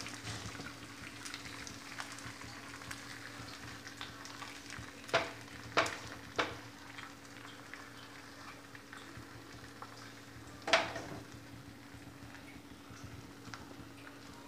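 Beaten egg frying in oil on a hot tawa as an omelette sets: a soft, steady sizzle with small crackles. Three sharp knocks come between about five and six and a half seconds in, and a louder one near eleven seconds.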